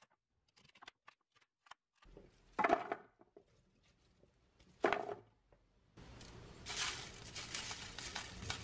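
Chopped celery being handled: faint knife clicks on a wooden cutting board, then two short handfuls and a longer run of crisp celery pieces dropping and rustling into a glass bowl over the last few seconds.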